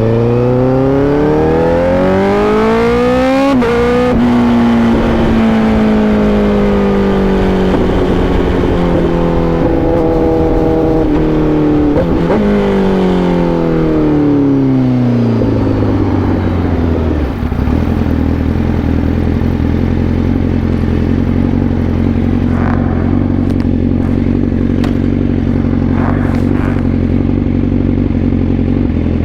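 Honda CBR1000RR-R SP's inline-four engine revving up hard with a gear change about 3.5 s in, then the revs falling away with a couple more breaks as the bike slows. About 17 s in it settles to a steady idle, with a few light clicks near the end.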